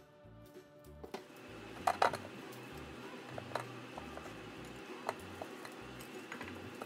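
Chunks of raw purple sweet potato set down on a perforated metal steamer plate in a stainless steel pot: scattered light knocks and clatters, the loudest about two seconds in. Faint music fades out in the first second.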